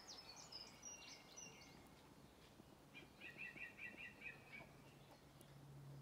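Faint garden birdsong: a few high chirps in the first second or so, then a quick run of about seven repeated notes about three seconds in. A low steady hum comes in about four seconds in.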